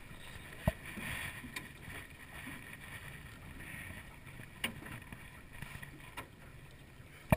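Steady wind and water noise around a small aluminium boat, with a few sharp knocks, the loudest about a second in and at the very end, while a small striped bass is reeled in and swung aboard.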